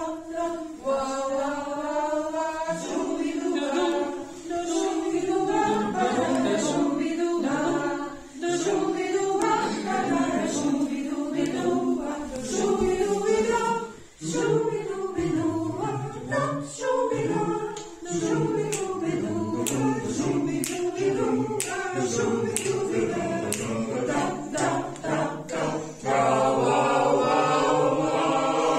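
A choir singing a cappella, growing fuller and louder near the end.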